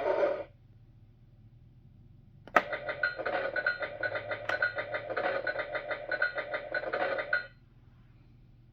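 A click about two and a half seconds in, as the Fisher-Price Great Adventures Magic Castle toy playset is pressed. Then its small built-in speaker plays a tinny electronic sound effect with a rapid pulsing for about five seconds, which cuts off abruptly.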